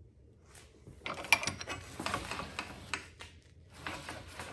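KFI TigerTail spring-loaded retractable tow rope reel being worked, its mechanism clicking and rattling rapidly as the rope is pulled off the reel. The clicking starts about a second in, stops briefly, and picks up again near the end.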